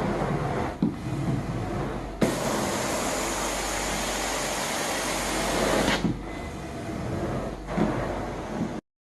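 Carpet extraction wand drawing suction across the carpet in strokes, a steady rushing hiss that brightens and fills out for a few seconds in the middle as solution is sprayed and pulled back up. It cuts off suddenly near the end.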